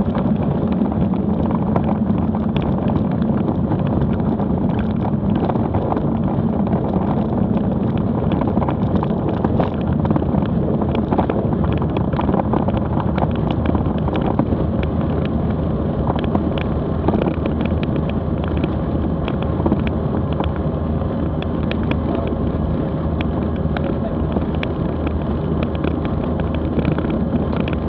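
Cabin sound of a DOVA DV-1 Skylark light aircraft rolling on a grass runway after landing: the piston engine and propeller running steadily, with frequent short knocks and rattles as the airframe bumps over the ground.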